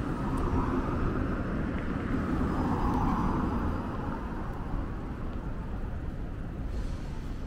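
City street traffic: the noise of a vehicle passing close by swells over the first few seconds and then eases into a steady traffic hum with low rumble.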